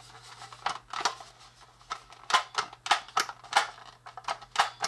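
Irregular clicks and taps of AA batteries and hard plastic parts being handled, as batteries are fitted into a toy coffee maker's battery compartment.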